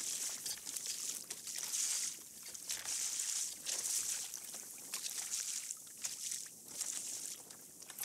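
Sea water lapping and splashing against a kayak's hull on a choppy sea, in repeated swells of splashing about once a second, with a few light knocks.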